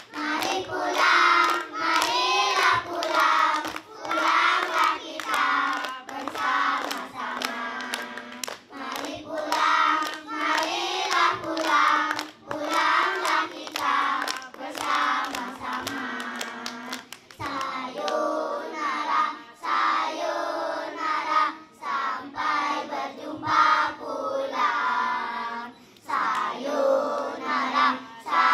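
A group of young children singing a song together, clapping their hands along with it.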